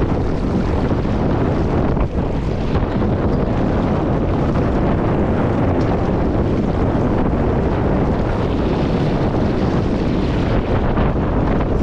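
Wind buffeting the microphone aboard a J24 sailboat sailing upwind, a steady loud rush over the sound of water running along the hull.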